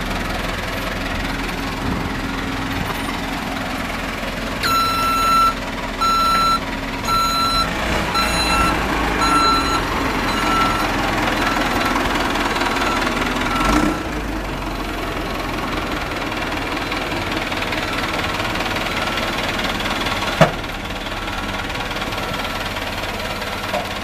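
1997 JCB 217 backhoe loader's diesel engine running steadily, with its reversing alarm beeping about once a second for around nine seconds, the beeps growing fainter. A single sharp knock about twenty seconds in.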